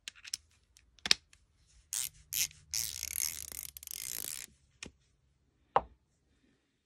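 Round-headed Gedore 1/4-inch ratchet being worked by hand: a few sharp clicks, two short bursts of pawl clicking, then a fast continuous run of clicks lasting about a second and a half. A single hard knock near the end.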